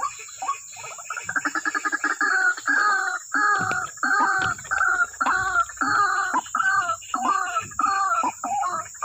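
White-breasted waterhens calling: a rapid run of short notes about a second in, then a regular series of loud, harsh repeated notes about two a second. A steady high insect hum runs underneath.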